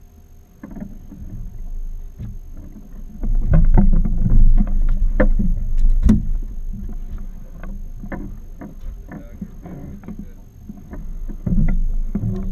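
Clunks and knocks of gear and people moving on a small fiberglass fishing boat's deck and hull, over a steady low rumble that swells for a few seconds in the middle.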